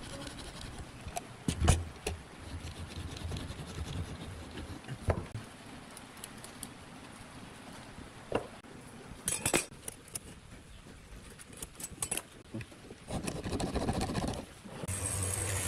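Hand-tool work on pine boards on a wooden workbench: a few scattered knocks and clicks as the wood and a marking gauge are handled and set down, then a stretch of scraping near the end as the gauge is run along the board. A brief steady hiss with a high tone follows just before the end.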